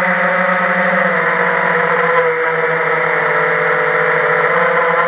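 FPV quadcopter's motors and propellers whining steadily, heard from the onboard camera; the pitch dips slightly about a second in and rises again near the end.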